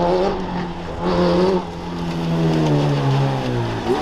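Off-road race car engine running, its pitch dropping in two steps in the second half, with a quick rev near the end.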